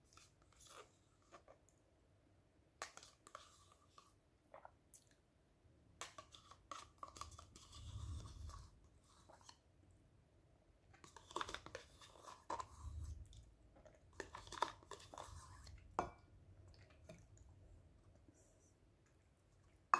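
Faint eating sounds: a spoon clicking and scraping inside a yogurt cup, with soft mouth sounds as spoonfuls of yogurt are eaten. Scattered clicks, busiest in the middle.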